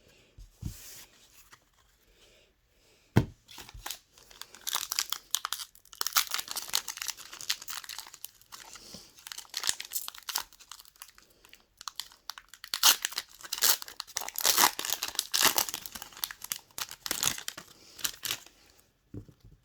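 Foil booster-pack wrappers crinkling and crumpling in the hands in a long run of crackly bursts, with a single sharp knock about three seconds in.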